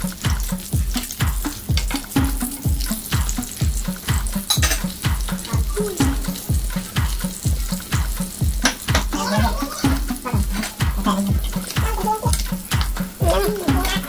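Catfish pieces sizzling in oil in a frying pan, with clicks and scrapes of metal tongs turning them. A background music track with a steady bass beat, about two and a half beats a second, runs underneath.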